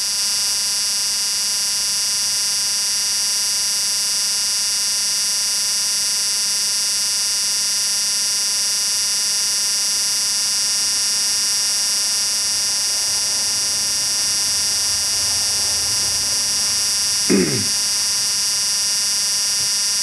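A steady, high-pitched electronic tone like an alarm buzzer that holds unchanged, with one brief falling sound about seventeen seconds in.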